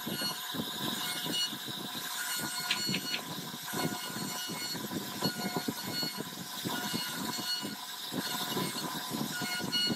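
CNC router spindle running with a steady whine while its bit carves into a wooden board, the cut adding an uneven low rumble.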